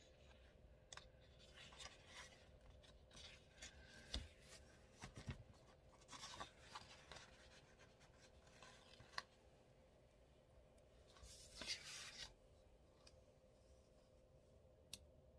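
Faint handling of paper sticker sheets and planner pages: scattered quiet rustles and small clicks, with one longer rustle a few seconds before the end, as a sticker is peeled and pressed onto the page.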